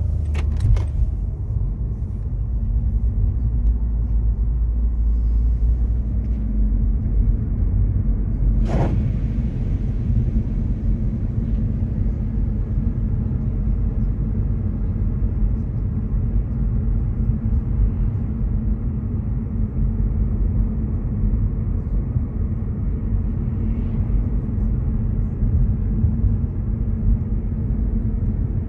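A steady low rumble, with one short sharp click about nine seconds in.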